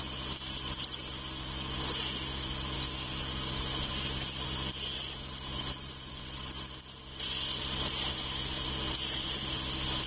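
Short high-pitched chirps repeating about once a second over a steady high insect-like drone, with a low steady hum underneath.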